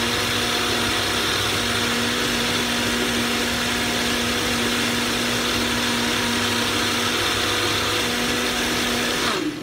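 Ninja blender running steadily at full speed, blending frozen berries into a smoothie, then switched off near the end with the motor winding down.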